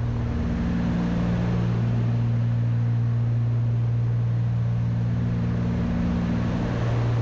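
Twin piston engines of a Cessna 310 in cruise descent, a steady drone heard from the cockpit.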